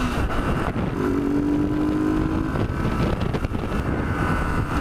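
Sport motorcycle riding at a steady cruise: the engine holds an even note, with wind rushing over the microphone.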